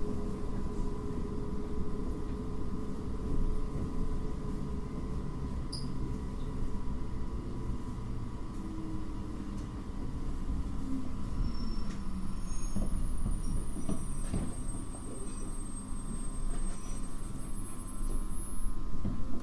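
Running sound inside a JR 733-1000 series electric train as it slows for its stop: a steady rumble, with the motor whine falling in pitch and fading about two-thirds through. Then come a few sharp knocks.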